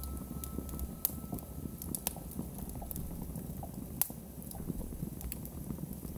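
Experimental electronic music played live: sparse, irregular clicks and crackles over a low rumbling noise, with a held tone and deep hum dying away about a second in.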